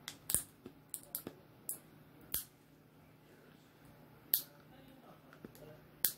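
Sharp plastic clicks and taps, about seven of them at irregular intervals, as a stubborn toy package is worked at by hand; the loudest come near the start and about four seconds in.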